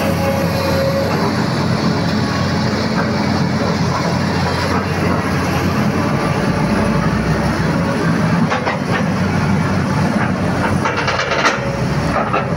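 Tracked hydraulic excavator's diesel engine running steadily under load, with a run of metallic clanks from the machine late on.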